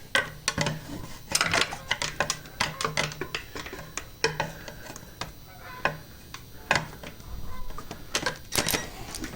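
Ratchet wrench clicking in irregular strokes while loosening a bolt on a Chevy LS 5.3 V8 engine during teardown, with light metallic clinks.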